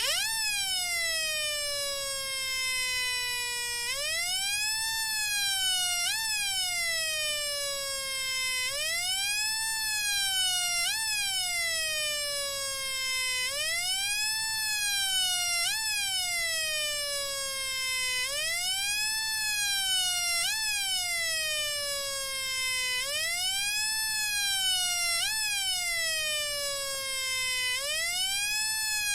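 Electronic police-siren tone from a homemade two-NE555 timer circuit driving a small speaker: a buzzy wail that sweeps quickly up and slowly down in pitch, a big rise followed by a smaller one, the pattern repeating about every five seconds.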